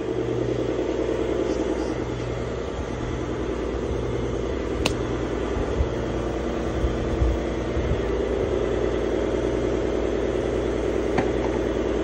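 A machine running steadily, with a low throb that pulses about once a second, and a single sharp click about five seconds in.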